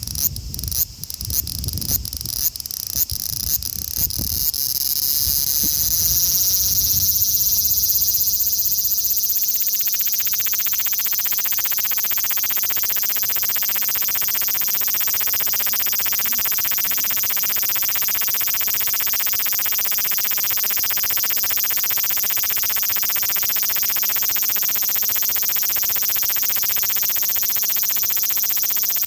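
Male large brown cicada (Graptopsaltria nigrofuscata) singing. It starts with a series of separate chirps about two a second, then about five seconds in goes over into a loud, continuous sizzling buzz that holds steady.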